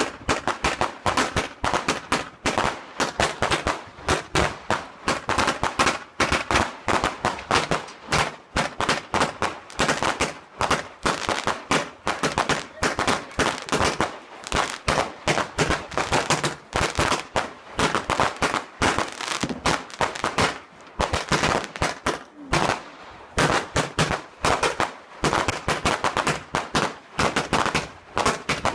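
Fireworks going off in a rapid, continuous barrage of sharp bangs and crackles, several reports a second with only brief pauses.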